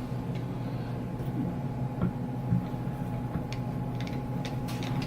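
Scattered light clicks and knocks of deadbolt and smart-lock hardware being handled and fitted, over a steady low hum.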